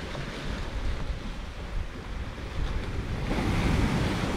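Wind buffeting the microphone over the wash of sea waves; the wash swells about three seconds in.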